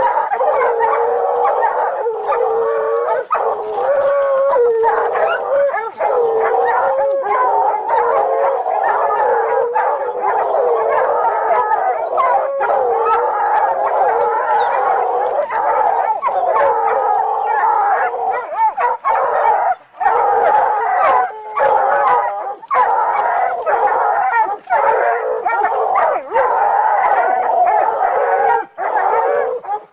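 Several hounds baying and howling without pause, their long wavering cries overlapping, as they hold a cornered big cat at bay.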